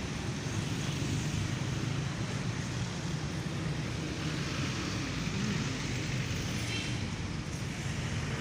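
Steady background noise: a low rumble under an even hiss, with no distinct event standing out.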